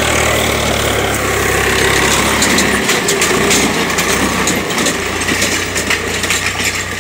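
Swaraj 735 tractor's three-cylinder diesel engine running steadily as it pulls a tine cultivator through stony soil.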